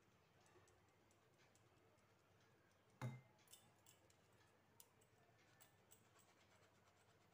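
Near silence with faint scattered ticks and one louder click about three seconds in: a plastic sieve being tapped and shaken to sift flour and cocoa powder into a glass bowl.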